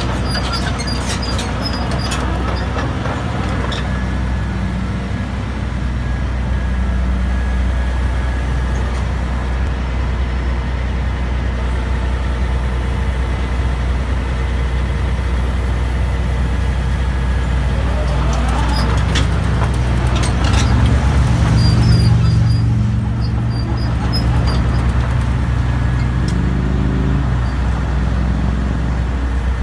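2008 Roadtec RX-900 asphalt milling machine's diesel engine running with a steady low drone. About two-thirds of the way through, a rising whine comes in and the sound grows louder and fuller for several seconds, then settles back.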